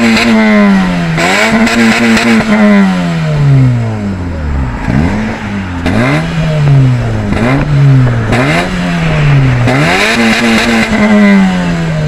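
Honda Civic Type S engine being revved at a standstill through an exhaust with the rear silencer (backbox) deleted and a single exit. There are repeated throttle blips, each one climbing quickly and then sagging slowly back down.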